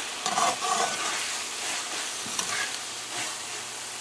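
Metal spoon stirring and scraping stewed cabbage around a hot metal pot, over a steady sizzle. The loudest scrapes come in the first second, with lighter taps and scrapes after.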